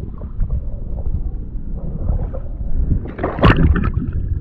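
Muffled water noise heard through a camera held under water: a low, dense rush with many small knocks, and a louder, sharper burst about three and a half seconds in.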